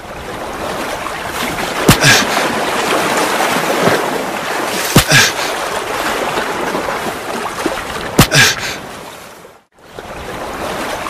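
Water splashing and sloshing around people wading and swimming, a steady rushing noise, with three sharp smacks about three seconds apart. The sound drops out briefly near the end.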